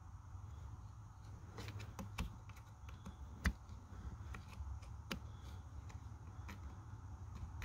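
Scattered small clicks and taps of a flat-blade screwdriver prying loose the retaining tab on a car's accelerator pedal assembly, the sharpest about three and a half seconds in.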